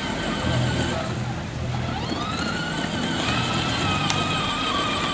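Children's electric ride-on scooter's motor whining as it is driven; the whine rises in pitch about two seconds in, then holds steady.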